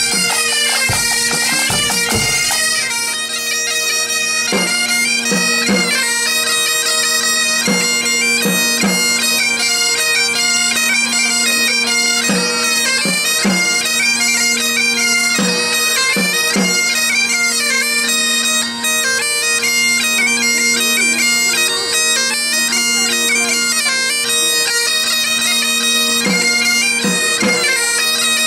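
Breton bagad playing a tune: bombardes carry the melody together with a biniou braz bagpipe over its steady drones. There are drum strokes in the first few seconds.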